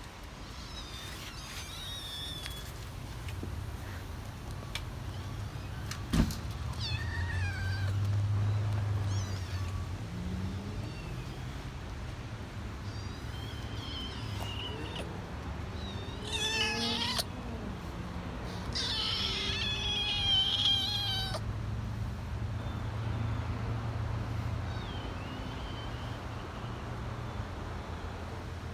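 Kittens mewing again and again in short, high, thin calls, the loudest ones about two-thirds of the way through, over a low steady rumble. A single sharp knock about six seconds in.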